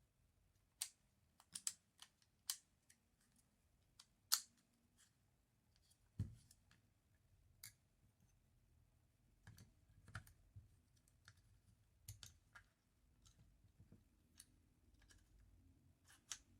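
Irregular sharp clicks and snaps of an airsoft 1911 pistol's small parts being handled and fitted, with one duller knock about six seconds in.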